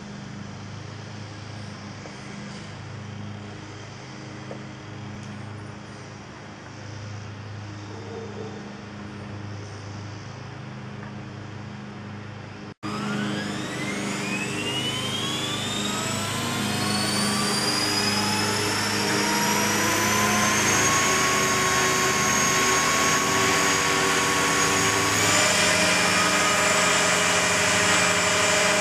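Steady low hum, then about halfway through an Align T-REX 500 electric RC helicopter's motor and rotor spool up in a loud rising whine that climbs for several seconds, levels off, and steps up again near the end while the helicopter is still on the ground.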